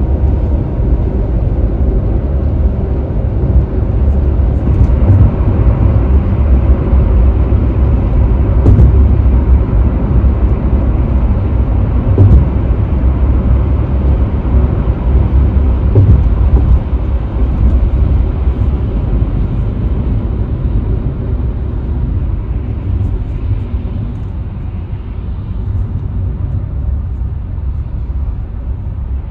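Car travelling at freeway speed: steady low road and tyre rumble with wind noise, easing off a little in the last several seconds.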